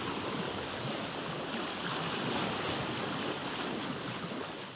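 Ocean waves and surf: a steady wash of sea noise that begins to fade out near the end.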